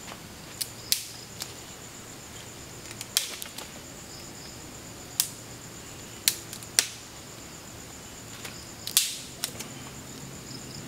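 Dry twigs snapping as they are broken by hand: about ten sharp cracks at uneven intervals, the loudest around the middle and near the end. Under them runs the steady high chirring of night insects.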